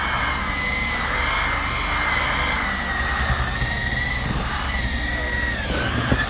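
Electric orbital sander running steadily on a wooden board, its pad working the wet finish into the wood as a sanding slurry ('gravy'). A whine wavers slightly in pitch over a low hum, dipping briefly near the end.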